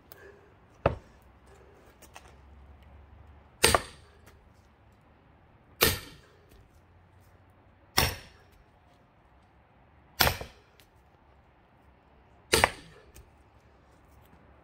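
Heavy hammer blows splitting a thick pine log for firewood: six sharp strikes about two seconds apart, each with a short ring.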